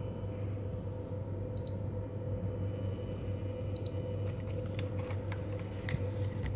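Touch controls of an electric cooktop beeping twice, short high beeps about two seconds apart as the power level is set, over a steady low hum. A few light clicks near the end.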